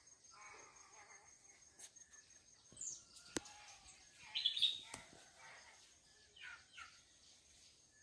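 Faint birds chirping in a few short calls, one falling in pitch near the start and the clearest about halfway through. Two sharp clicks are heard in between.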